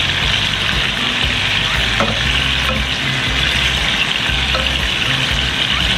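Onions sizzling steadily in hot oil in a frying pan as they are sautéed, with a light knock about two seconds in.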